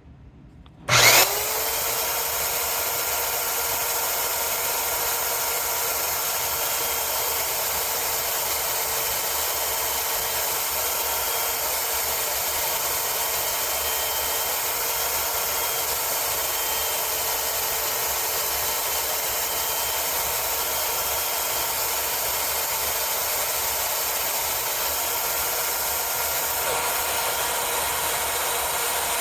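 Electric belt knife sharpener switched on about a second in, its motor whine rising quickly to a steady pitch and then running evenly, while a new point is ground onto a Japanese utility knife with the edge trailing.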